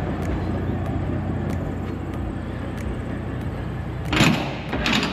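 Steady low rumble of an idling diesel truck, with two short, loud metallic clanks about four and five seconds in as a shipping container's door latch handle is worked.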